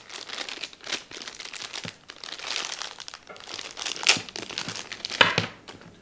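Thin plastic packaging bag crinkling as a cable is pulled out of it, with a few sharp crackles about 1 second, 4 seconds and 5 seconds in.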